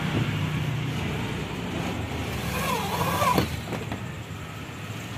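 A steady low engine rumble that eases off somewhat in the second half, with a short wavering higher tone about three seconds in.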